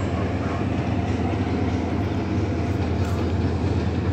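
Passenger train running along the track, a steady low rumble with a constant hum.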